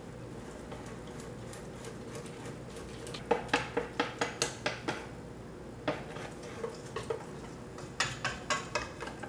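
Utensil clinking against a mixing bowl while stirring pancake batter: a quiet start, then quick runs of taps about a third of the way in and again near the end.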